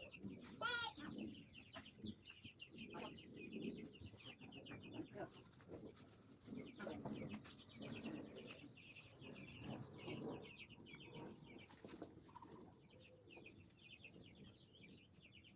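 Faint animal calls: a rapid run of high chirps throughout, with scattered lower calls and one wavering cry just after the start.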